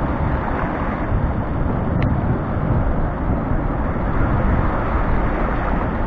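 Rough sea surf washing and breaking over a rocky, stony shoreline, a steady rushing noise, with wind buffeting the microphone.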